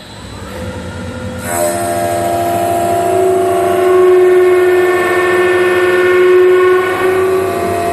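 CNC wood lathe roughing a spinning rolling-pin blank at high feed: a loud, steady whining tone with several overtones sets in about a second and a half in as the cutters bite, over the rushing noise of the cut.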